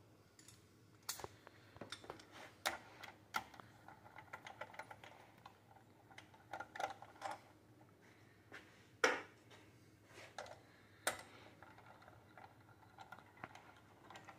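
Faint, irregular metallic clicks and clinks of a socket wrench and extension working the connecting rod cap nuts loose, with a couple of sharper knocks past the middle.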